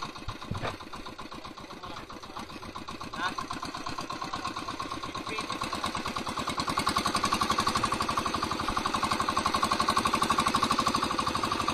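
Outrigger fishing boat's engine running with a rapid, even putter. It grows louder about halfway through.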